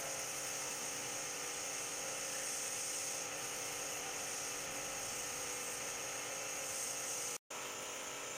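Electric pressure washer running steadily, its motor whining under the hiss of the water jet spraying onto car floor mats. The sound cuts out for a moment about seven seconds in.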